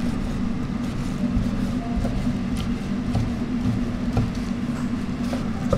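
Cleaver slicing cooked offal on a wooden cutting board, the blade knocking on the wood a few times at irregular intervals, over a steady low hum.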